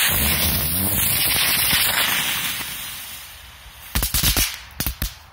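Small 'rose' ground firework hissing loudly as it burns for about three seconds, then dying away, followed near the end by a quick run of five or six sharp cracks.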